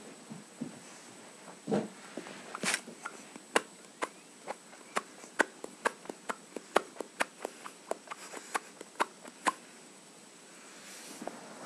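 A quick run of short, sharp clicks, about three a second, starting a couple of seconds in and stopping near the end, after a single dull knock. A faint steady high-pitched whine sits underneath.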